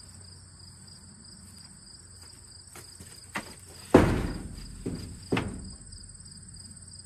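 Wooden pallet set down on the dirt floor: a light knock, then a heavy thud about four seconds in, then two lighter knocks as it is shifted into place. Steady insect chirring behind it.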